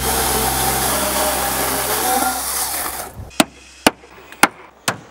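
Chainsaw cutting through timber, the cut ending about three seconds in. Then four sharp knocks about half a second apart, a hammer driving nails into a wooden rafter.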